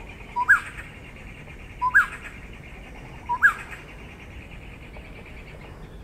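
Yellow-crowned gonolek calling: three short whistled calls about a second and a half apart, each a brief low note that jumps to a quick rise and fall in pitch, with a sharp click. A steady high buzz runs underneath.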